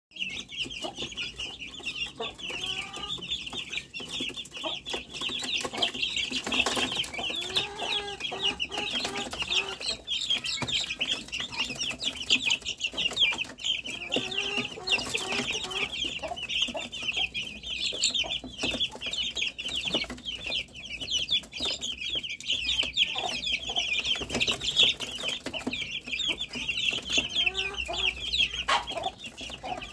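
A flock of young chickens peeping continuously in a high, dense chorus, with a few lower calls now and then.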